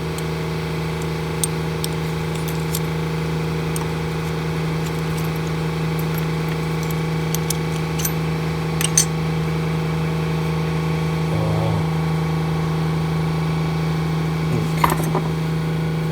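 Small metallic clicks and taps, scattered a handful of times, as the parts of an HES 5000 electric strike are handled on a desk, over a steady electrical hum.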